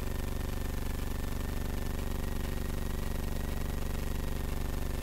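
Steady drone of a Van's RV-9A's piston engine and propeller in flight: an even low hum made of several steady tones.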